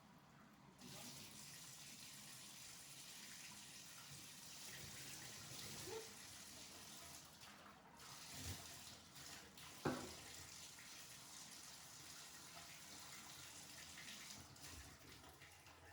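Faint water running from a tap into a bathtub, a steady hiss that starts about a second in, with one soft knock about ten seconds in.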